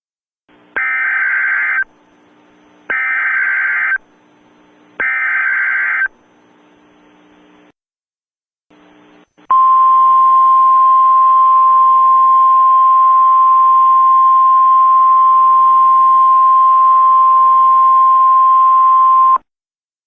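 Emergency Alert System SAME header: three bursts of about a second each of warbling digital data tones, with a faint static hiss between them. After a short pause comes the NOAA Weather Radio warning alarm, a single steady 1050 Hz tone held for about ten seconds, which announces a new warning message.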